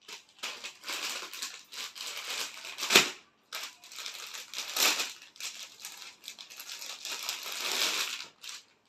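Clear plastic packaging bag crinkling and rustling as a folded suit is handled and pulled out of it. There is a sharp, loud crackle about 3 s in and another near 5 s, and the rustling stops just before the end.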